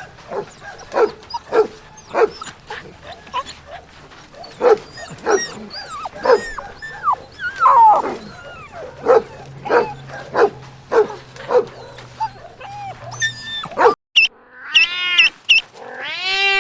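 Dog barking over and over in short, sharp yips, about two a second, with a brief whine about eight seconds in. Near the end the sound cuts to a different, longer call that rises and falls in pitch.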